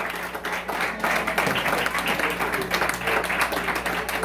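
A group of children clapping, a dense, uneven patter of many hands.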